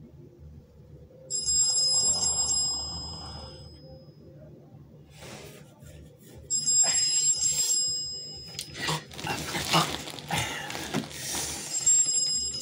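Mobile phone alarm ringing with a high-pitched tone in three bursts a few seconds apart. Shuffling noises come between the second and third bursts.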